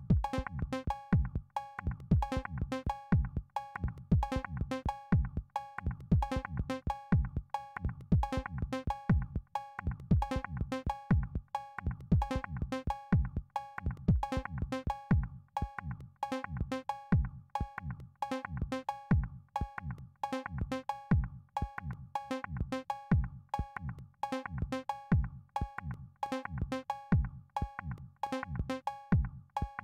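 Live-coded electronic music: a looping drum-machine pattern of 808-style bass drums that drop in pitch, with short repeated synth notes on the same few pitches above them.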